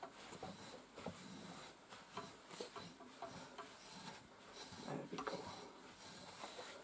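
Metal grooming rake drawn again and again through a miniature schnauzer's wiry coat, a faint rasping scrape with each short stroke as it pulls out the soft undercoat without cutting.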